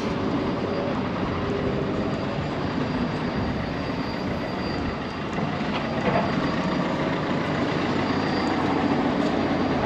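Steady rumbling outdoor noise with no distinct events or rhythm.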